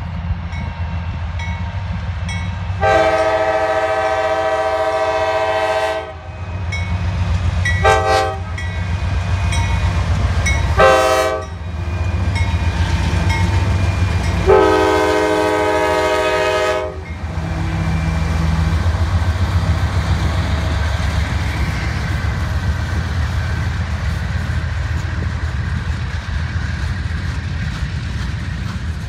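CSX freight train's diesel locomotive air horn sounding one long blast, two short ones, then another long one, over the low steady drone of the locomotives' diesel engines. After the locomotives pass, slow-moving boxcars roll by with steady wheel noise on the rails.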